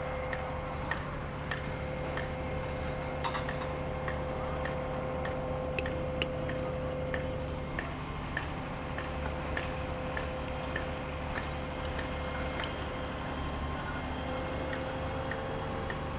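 Machinery running steadily with a low drone and a held tone, which drops out for several seconds about halfway through. Irregular sharp ticks and light metallic taps come over it, several every couple of seconds.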